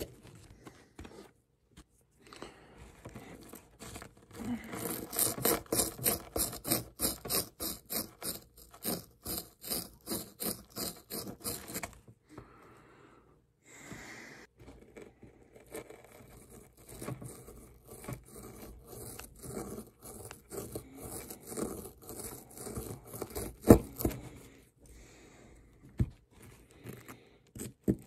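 Small plastic digging tool scraping and chipping at a hard plaster dig-kit block in quick repeated strokes, about three a second, then in slower, fainter scrapes. A single sharp knock comes near the end.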